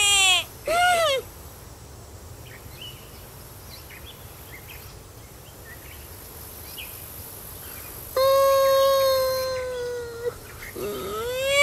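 Puppet-show animal calls, voiced in a warbling bleat like a sheep's that ends just after the start, then a short call. After a quiet stretch with faint bird chirps, the monkey puppet gives a long held cry about eight seconds in, sagging a little in pitch, and a short rising call follows near the end.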